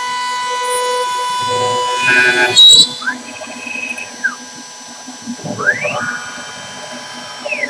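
CNC router spindle cutting a hardwood blank with a steady whine, ending with a brief loud burst about two seconds in. Then the machine's stepper motors whine up in pitch, hold and fall back twice as the axes make rapid repositioning moves, with the rotary axis turning the blank.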